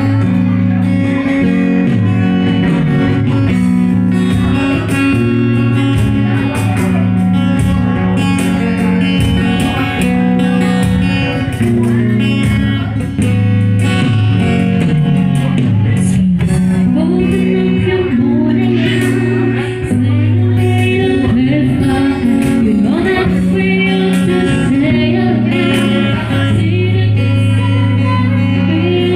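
A band playing a song: guitar with a singing voice over a steady low accompaniment.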